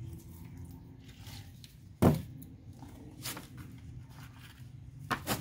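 Plastic bottle and plastic cup being handled: one sharp knock about two seconds in and a few lighter clicks, over a faint low steady hum.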